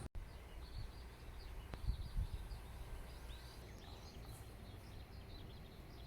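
Faint outdoor ambience with small birds chirping softly over a low rumble.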